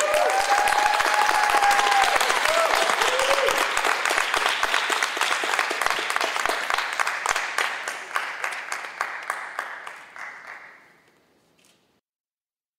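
Audience clapping, with a few shouted cheers in the first few seconds; the applause thins out and dies away about eleven seconds in.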